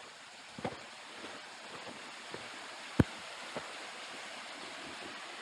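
Steady rush of water from the rapids and waterfall. A couple of faint knocks come under a second in, and one sharp click about three seconds in.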